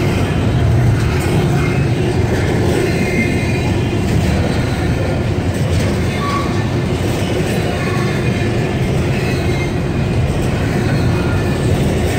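Train rolling by on the track: a loud, steady rumble of railcars, with faint high wheel squeals now and then.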